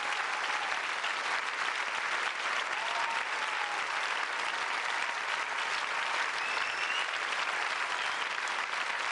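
Theatre audience applauding: dense, steady clapping from a large crowd, level throughout.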